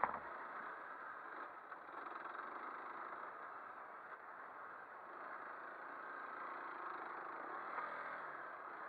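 Off-road motorcycle engine running at a steady pace while riding a dirt trail, under a steady rush of wind noise on the helmet camera. A single sharp knock right at the start.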